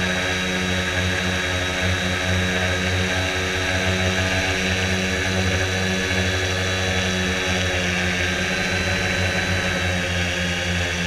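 Electric motor and propeller of a Quanum Venture RC plane running steadily in flight, a low buzz under a high whine that dips slightly about eight seconds in, heard from a GoPro mounted on the plane.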